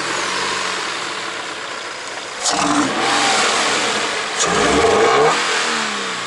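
Scion FR-S 2.0-litre flat-four revved twice, about two seconds apart, with the airbox opened up so that mostly the intake roar and hiss is heard.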